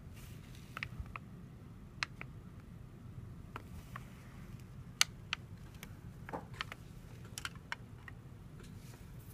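Handling noise: scattered light clicks and taps, about a dozen at irregular intervals, over a steady low hum.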